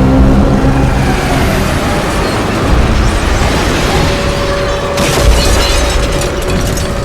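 Sci-fi destruction sound effects: dense rumbling with heavy booms about two and a half and five seconds in. A steady held tone enters about four seconds in.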